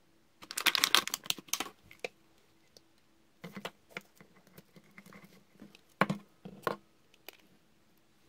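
Close hand-handling noises: a burst of rustling and tapping about half a second in, then softer clusters of taps and clicks around three and a half and six seconds. The hands are handling a bagged LED string light and fitting its thin wire along the back of a miniature room wall.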